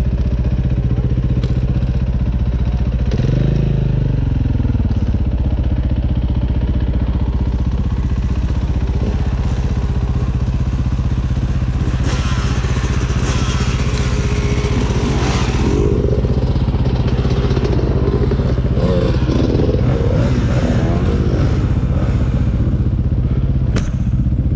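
Dirt bike engine idling steadily while other trail bikes rev and ride past. One goes by with a falling pitch about three seconds in, and there is more revving around the middle.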